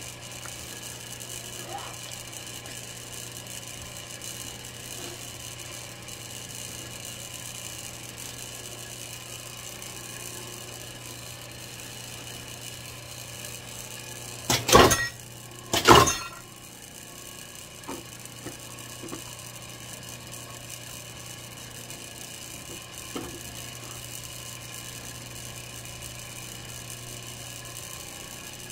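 Herman Schwabe 20-ton clicker press cutting leather: a steady machine hum, and about halfway two loud sharp knocks a little over a second apart as the swinging press head comes down on the clicker die.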